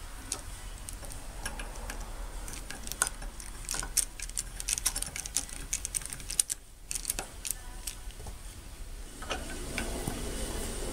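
Small metal tools clicking and clinking against an old wrench clamped in a cast-iron bench vise as a socket and nut driver are set against its handle pin. Near the end there is a rougher grinding as the vise jaws are screwed closed to press the pin out.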